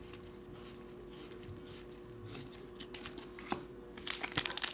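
Baseball trading cards sliding and rubbing against each other as a stack is handled and sorted: a soft, scattered rustle. About four seconds in, foil card-pack wrappers start crinkling loudly.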